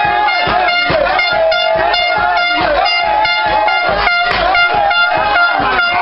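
Loud dance music with a fast, steady beat plays from a loudspeaker. Over it, a plastic horn is blown in long, wavering notes.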